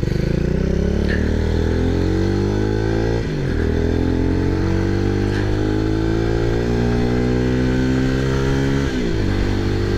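X-Pro X24 motorcycle engine accelerating hard, its pitch rising through the gears with two upshifts, one about three seconds in and one near the end, heard from the rider's seat.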